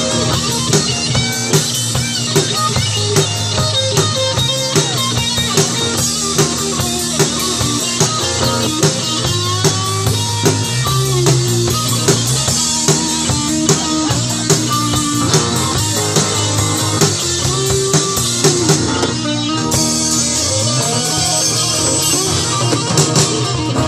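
Live rock band playing an instrumental passage: guitar over a drum kit keeping a steady beat, with the cymbals getting brighter near the end.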